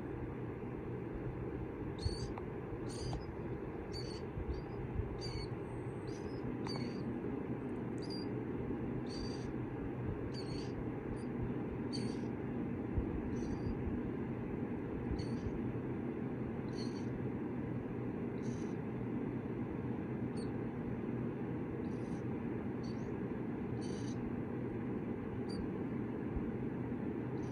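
Baby killdeer chicks peeping: short, high-pitched calls repeated irregularly about once a second, over a steady low hum.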